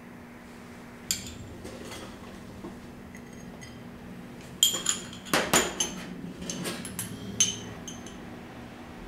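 Dishes and metal utensils clinking: one clink about a second in, then a quick run of sharp, ringing clinks in the middle.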